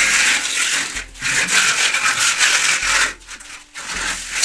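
Long straight-edge scraped across fresh cement plaster on a wall, levelling it: a short rasping stroke, then a longer one from about a second in, going quieter near the end.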